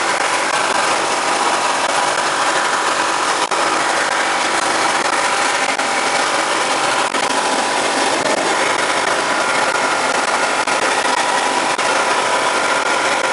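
Wet blasting cabinet running, with a steady, loud hiss of compressed air and abrasive slurry spraying onto a Yamaha TZR250R two-stroke cylinder. Faint steady tones run through it.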